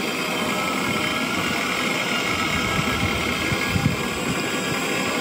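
Single-burner propane camp stove burning steadily under a kettle, a constant rushing hiss with a low rumble.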